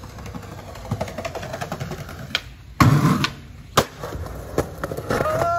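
Skateboard clacks and knocks, with one heavy board impact about three seconds in and a sharp crack just under a second later. Music comes in near the end.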